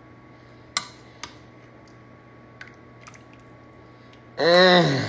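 A metal spoon clinks sharply twice against a glass baking dish while butter sauce is spooned over fish fillets, followed by a few lighter taps. Near the end comes a person's drawn-out vocal sound, rising and then falling in pitch, which is the loudest thing heard.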